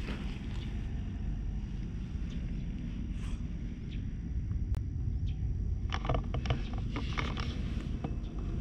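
Steady low wind rumble on the microphone, with a burst of rustling and scuffing about six seconds in as clothing brushes against the camera.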